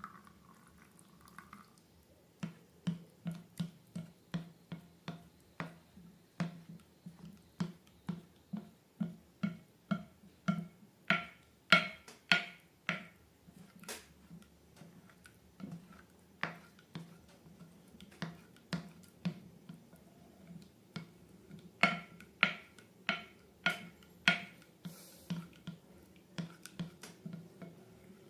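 Slime being worked by hand: sticky clicks and pops, about two a second, some louder than others.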